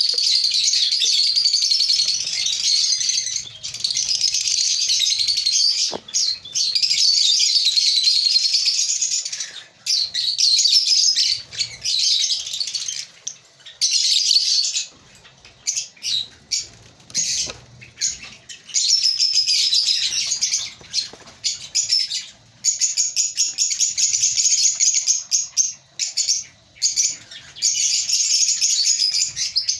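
A colony of African lovebirds chattering and chirping, a dense high-pitched twittering that thins out twice into separate short chirps before filling in again.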